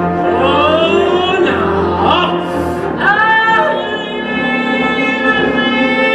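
Live musical-theatre singing with orchestra: a voice sings a gliding, bending phrase, then about three seconds in takes one long, high held note over the orchestra.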